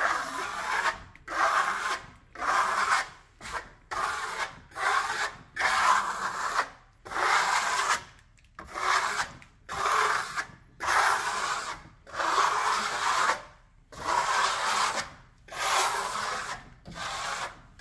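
Trowel scraping over soft decorative plaster on a wall in repeated rasping strokes, about one a second, smoothing down a freshly rolled-on coat.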